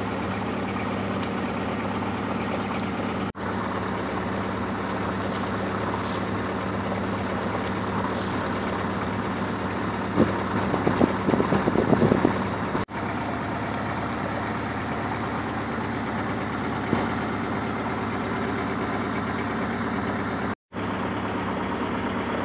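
A small boat's engine running steadily at low speed, a constant drone with a few short dropouts in the audio. About halfway through, a louder, irregular sound rises over it for a couple of seconds.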